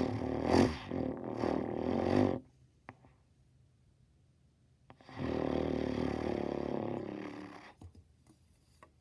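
A person's voice making a rough, raspy noise into a trumpet, twice: one sound lasting about two and a half seconds, then after a pause a second one of similar length.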